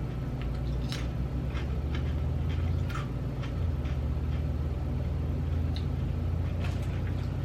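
A few faint crunches of potato chips being chewed, heard over a steady low hum.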